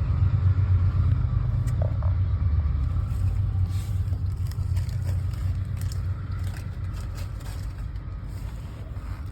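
Long freight train passing, a steady low rumble that slowly fades, with a few faint clicks about halfway through.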